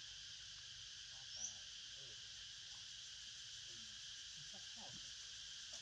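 Steady high-pitched chorus of insects in forest undergrowth. A single short rising chirp cuts in about a second and a half in.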